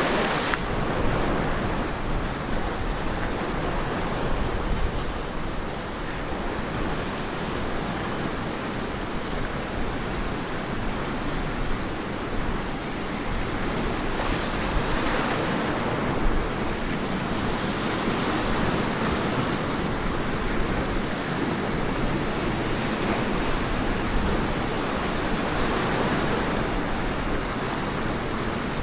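Ocean waves breaking and washing on a beach, a continuous surf roar that swells and eases as each wave comes in, with wind buffeting the microphone.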